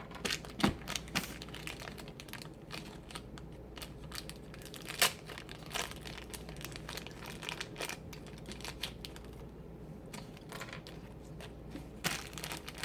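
Crinkling and rustling of doll packaging being handled and opened, in irregular crackles with a few sharper ones about half a second in and about five seconds in.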